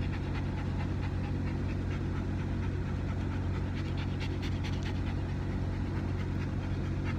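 Small dog panting at an open car window, over steady wind buffeting and road rumble from the moving car.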